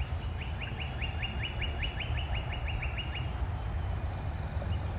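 A songbird singing one fast trill of about fifteen quick down-slurred whistled notes, about five a second, lasting about three seconds, over a steady low rumble.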